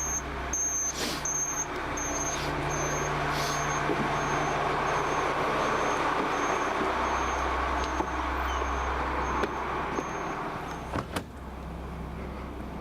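Motorhome engine idling steadily, with a short high-pitched beep repeating about every 0.6 s as the four-way emergency flashers run. The beeping fades out a little after ten seconds in, and there is a sharp click near the end.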